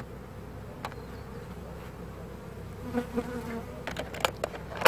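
Honeybees buzzing steadily around a hive, with one bee passing close and louder about three seconds in. A few sharp clicks come near the end.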